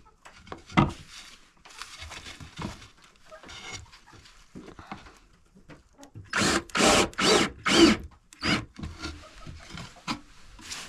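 Wooden coop door being handled and fitted: a knock about a second in, rubbing and scraping, then four loud, sharp sounds in quick succession a little past the middle.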